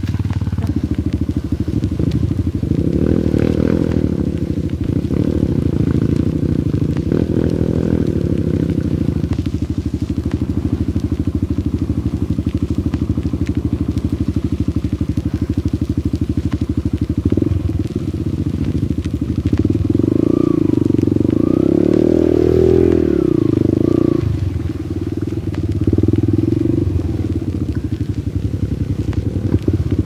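Single-cylinder dirt bike engine running as it is ridden, its note rising and falling with the throttle, with a few quick revs about twenty seconds in.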